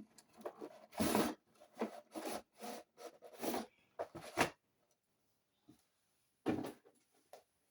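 Cardboard box and packaging being handled as a toy is unpacked: a run of short rubbing and scraping strokes over about three seconds, then a single one after a pause.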